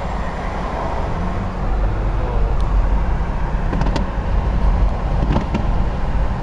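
Steady road and engine rumble of a car driving on a freeway, heard from inside the car, with a few faint sharp cracks about two and a half, four and five and a half seconds in.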